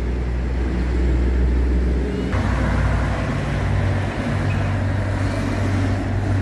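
Street traffic: cars and a box truck driving past, with the truck's engine a steady low hum through the second half.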